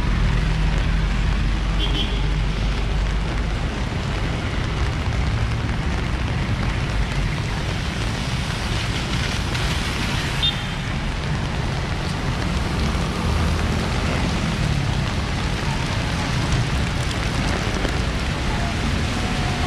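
Rain falling with a steady hiss over the low rumble of street traffic, with vehicles passing on the wet road.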